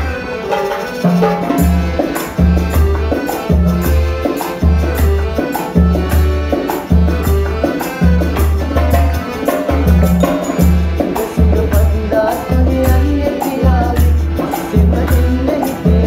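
Calypso band music: piano accordion melody over hand drums and a shaker, with a steady repeating bass beat.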